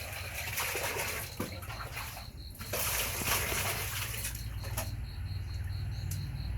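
Water splashing and sloshing as a small pet monkey is bathed. It comes in two stretches, the second, starting about two and a half seconds in, louder than the first.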